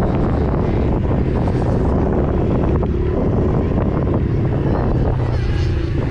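Small dirt-bike engine running steadily under heavy wind buffeting on the microphone.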